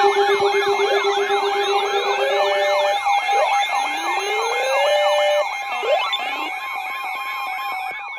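Several electronic sirens sounding together: fast repeating yelp sweeps and slower rising wails layered over steady alarm tones. The sound gets quieter about five seconds in.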